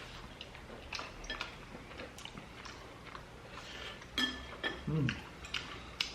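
Eating sounds of crispy fried chicken (kkanpunggi): scattered crunchy chewing clicks with utensils clinking on dishes, including a sharper ringing clink about four seconds in, followed by a brief low vocal hum.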